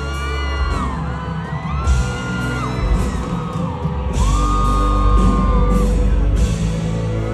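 Live pop band playing, loud, with long held vocal or synth notes over heavy bass and drums, and whoops from the audience.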